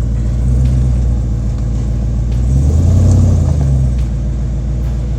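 Full-size pickup truck engine running at low speed while rock crawling, with a brief rev about two and a half seconds in.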